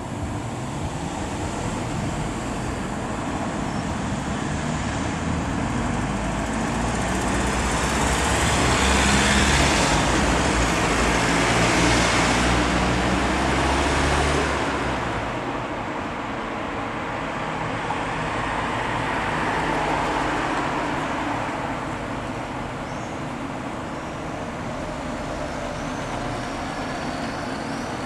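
Outdoor rush of road traffic with a low rumble. It swells for several seconds about a third of the way in, then eases back to a steady background.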